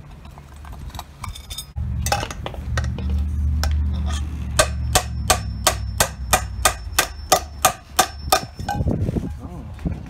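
A claw hammer strikes a metal saucepan in a quick, even series of about a dozen blows, roughly three a second, each with a short metallic ring. A low rumble runs underneath.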